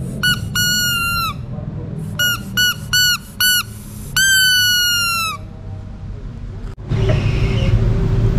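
A squeeze-toy rubber duck squeaking as it is squeezed by hand: two squeaks, four short quick ones, then one long squeak, each dropping slightly in pitch at the end. A forklift engine makes a low steady rumble underneath, which grows louder near the end.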